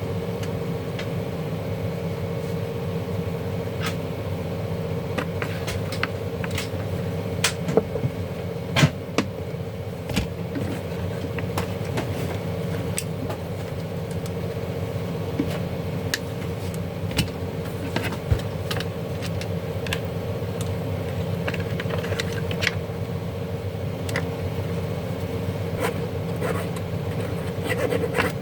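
A steady low mechanical hum with a constant tone, overlaid by scattered sharp clicks and taps.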